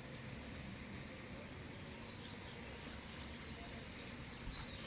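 Faint, scattered high chirps of small birds over a steady background hiss.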